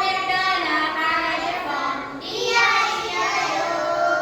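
Children singing, with drawn-out sung notes.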